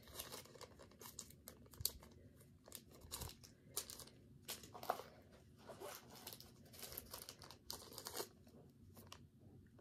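Small clear plastic bag holding press-on nails crinkling and rustling as it is handled, a faint run of irregular crackles.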